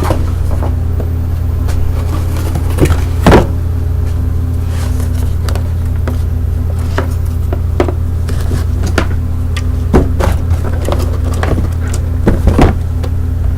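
A steady low electrical hum runs throughout, with a few scattered sharp clicks and pops. The loudest pop comes about three seconds in, and a small cluster follows near the end.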